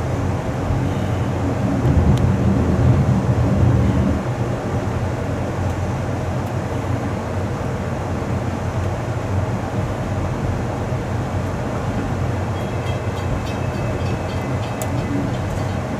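Steady rumble of a moving Amtrak passenger train heard from its rear car, a little louder for a couple of seconds about two seconds in.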